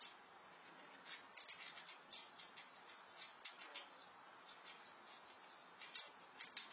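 A squirrel crunching food from a bowl: faint, irregular clicks in quick clusters of several a second.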